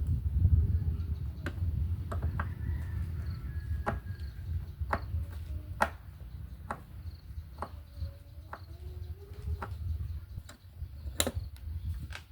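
Scattered sharp clicks and taps of small hard objects being handled, over a low steady rumble, with a few faint wavering chirp-like tones.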